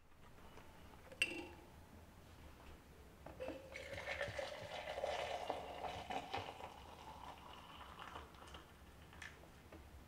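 A single glassy clink about a second in. Then liquid is poured from a pot into a glass measuring jug, a steady pouring and filling sound from about three and a half seconds in until near the end.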